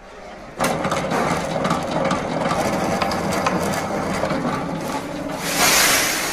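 Electric wire-stripping machine starting about half a second in and running as a 4 mm insulated copper wire is fed through and its PVC insulation is cut from the copper, a dense mechanical noise that grows louder for a moment near the end.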